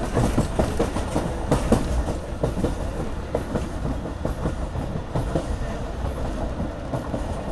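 Moving passenger train running along the track: a steady low rumble with a rapid, irregular clickety-clack of wheels on the rails, heard from on board.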